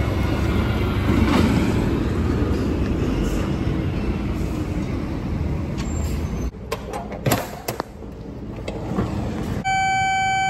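Street traffic: vehicles passing with engine and tyre noise, and a few sharp knocks about seven seconds in. Near the end a pipe locator receiver's steady electronic tone starts abruptly.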